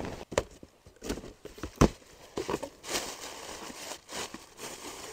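Cardboard shipping box being opened by hand: flaps and packing rustling and tearing, with several sharp knocks and clicks, the loudest about two seconds in.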